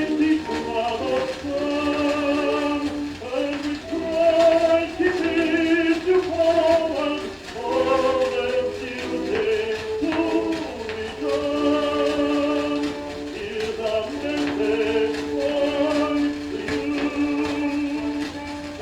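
A 78 rpm gramophone record playing: a male tenor singing a song with accompaniment, with light surface crackle from the disc.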